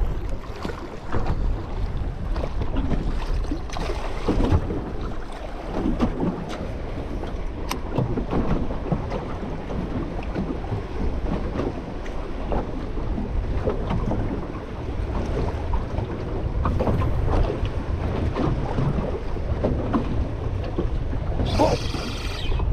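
Wind buffeting the microphone over waves slapping and sloshing against a small aluminium tinny rocking in choppy water.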